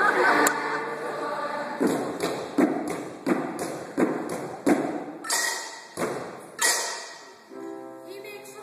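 Choral singing dies away, then a steady series of sharp thumps follows, about one every two-thirds of a second, two of them with a hissing, splashy edge. Sung or played notes come back in near the end.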